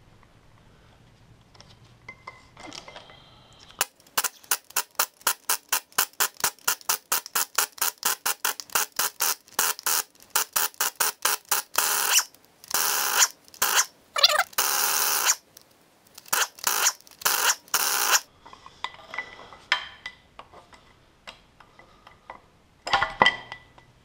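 Air impact wrench hammering on the crankshaft vibration damper bolts in a long run of rapid, even blows, then running in several longer bursts as the bolts come loose. Scattered metal clinks follow, with one loud clank near the end.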